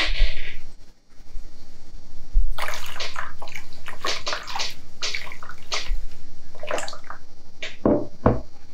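Liquid glaze poured from a stainless steel pitcher over the outside of a bisque-fired vase, running off and splashing steadily into a basin of glaze for about five seconds, starting a couple of seconds in. Two dull knocks near the end.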